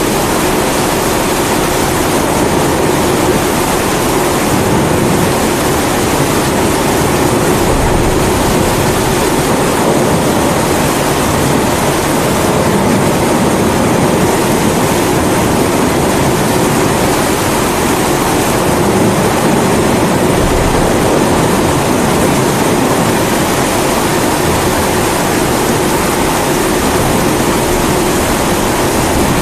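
Steady roar of a pressurised kerosene (primus-type) stove burner mixed with the hiss of steady rain. Low rumbles of thunder swell now and then.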